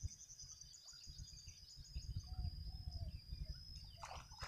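Outdoor ambience of birds calling, with short chirps and a few brief curved calls, over a steady high-pitched insect drone. A low rumble sets in about a second in.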